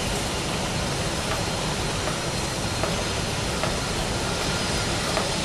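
Kobelco SK200 hydraulic excavator's diesel engine running steadily as it digs, with a few faint knocks.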